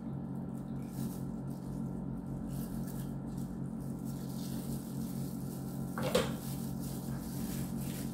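Watery sauce poured from a plastic bowl over raw chicken pieces in an enamel roasting pan, and hands working the chicken, with one louder knock about six seconds in. A steady low hum runs underneath.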